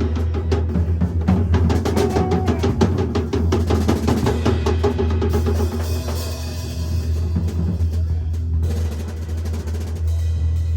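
Live rock band playing an instrumental passage, the drum kit to the fore. Fast, dense drum hits over a steady low bass drone give way past the middle to a cymbal wash, and the playing thins out near the end.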